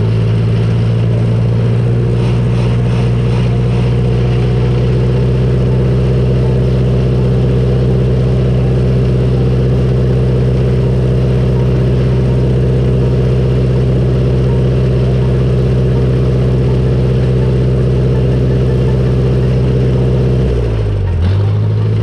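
Bulldozer's diesel engine running loud and steady at a constant speed. Near the end its pitch dips briefly, and then the sound cuts off suddenly.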